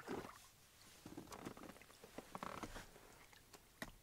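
Faint, brief splash as a small hooked fish is lifted out of the water, followed by scattered small clicks and rustles of handling the fish and line at the boat's side.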